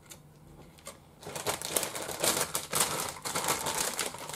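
Plastic food packaging crinkling and rustling as a hiyashi chuka noodle packet is opened and handled, a dense crackle that starts about a second in.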